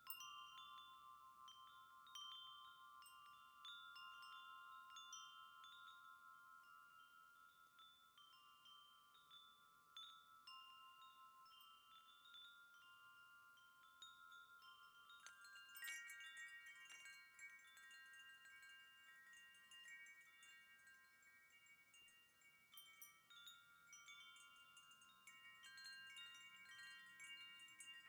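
Wind chime ringing quietly, struck again and again, each note lingering into the next. About fifteen seconds in, a busier flurry of strikes sets off more high notes at once.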